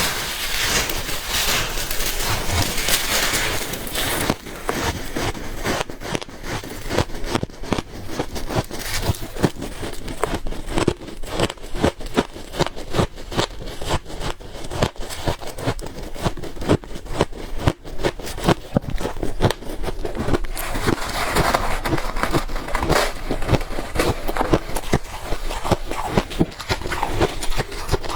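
Freezer ice being bitten and chewed close to the microphone: a steady stream of sharp, irregular crunches and cracks.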